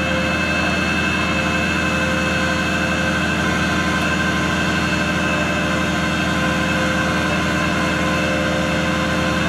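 Rollback tow truck's engine running steadily, with a steady whine over its low drone, as its winch pulls a pickup up the tilted flatbed.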